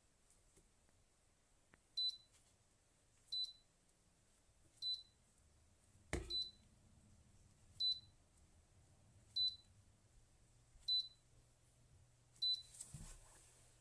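Electric kettle's temperature control panel beeping: eight short, high beeps about a second and a half apart, with a sharp click about six seconds in.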